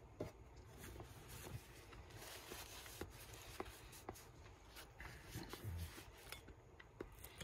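Faint eating sounds: quiet chewing and small scattered clicks and rustles of food and tableware at the table, over a near-silent room.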